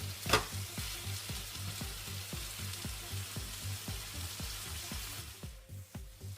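Marinated chicken stir fry sizzling in an oiled frying pan on medium heat, with a sharp knock about a third of a second in. The sizzle drops away near the end.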